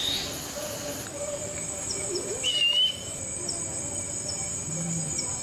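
Forest ambience: a steady high insect drone, a short wavering whistled bird call about halfway through, then a single low hoot of a brown fish owl near the end.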